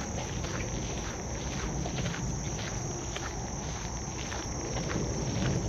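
Steady high-pitched chorus of summer insects, with footsteps on the trail about twice a second.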